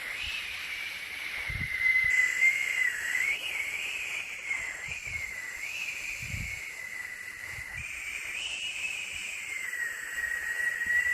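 Steady white-noise hiss with a high whistling whine that wavers up and down in pitch. A couple of soft low thumps are heard about a second and a half in and again about six seconds in.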